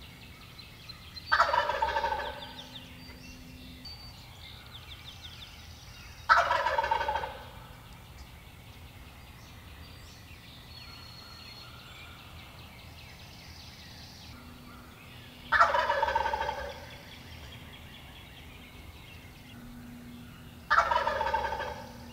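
A wild turkey gobbler gobbling from its roost tree, four loud gobbles of about a second each, several seconds apart. Faint songbird chirping sounds between them.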